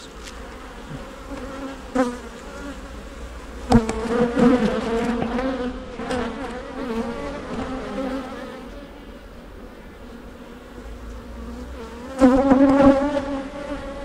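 Honey bees buzzing over an open hive: a steady hum that swells louder about four seconds in and again near the end as bees fly close past. A couple of brief knocks sound in the first four seconds.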